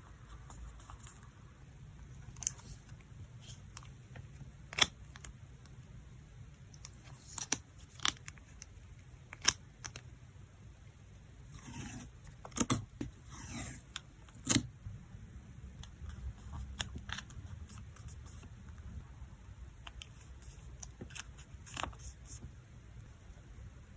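Photocards and plastic packing materials being handled: scattered sharp clicks and taps, with a short stretch of plastic rustling and sliding about halfway through.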